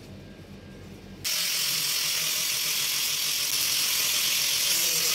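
Electric angle grinder fitted with a sanding disc, switched on abruptly about a second in and then running steadily as it sands a wooden shovel's handle joint.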